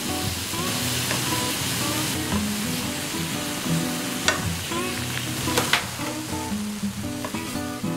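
Pot of buckwheat soba noodles at a hard rolling boil, a steady bubbling hiss as chopsticks stir the noodles, with two sharp clicks about four and five and a half seconds in. Plucked background music runs underneath.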